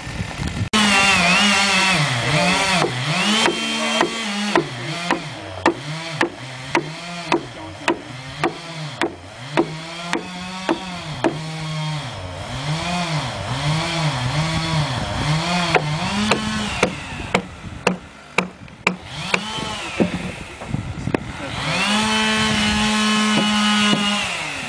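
Chainsaw ripping lengthwise through a red oak log along a ladder guide. The engine's pitch rises and falls over and over as it works under load, with sharp ticks about twice a second through the middle. Near the end it holds a steady high speed.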